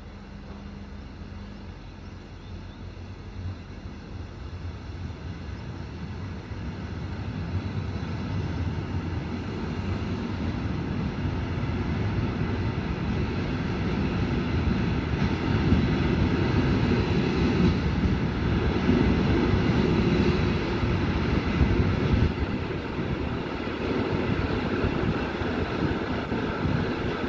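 Passenger train pulling out of a station, heard from one of its coaches. Wheels rumble and clatter on the rails, growing steadily louder over the first half as the train gathers speed, then running on at a steady level.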